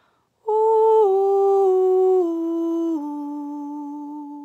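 A woman's voice sings a wordless line of four held notes, each a step lower than the last, with the lowest note held longest. It is a descending-pitch example for an ear-training exercise, where the voice is moving down.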